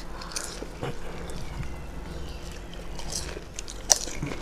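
Close-up eating sounds of fuchka (pani puri): crisp puri shells crunching and mouths chewing and smacking, with one sharp click near the end.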